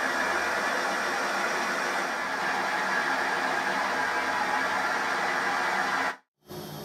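Emco F1 CNC milling machine's spindle, on its DC motor drive, running at a steady speed while the speed is being checked for calibration. It cuts off abruptly about six seconds in, followed by a fainter low hum.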